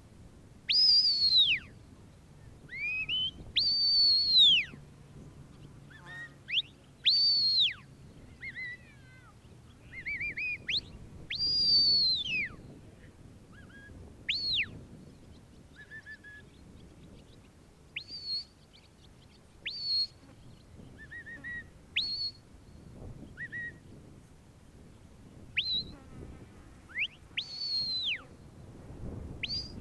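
Sheepdog handler's whistle commands to a working border collie, steering it on the sheep: a long run of sharp, high whistled notes. Some notes are long and fall away at the end, others are short quick upsweeps or lower rising chirps. They come every second or two.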